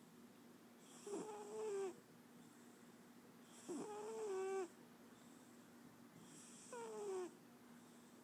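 Sleeping cat snoring: three loud snores about three seconds apart, each a short pitched tone with a hiss above it. The last one slides down in pitch.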